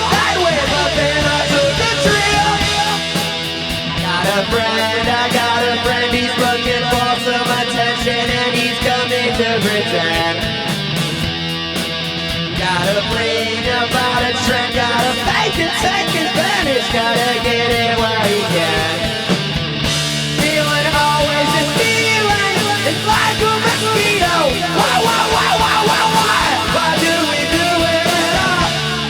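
Garage rock trio playing a song live, the full band going at a steady, loud level throughout.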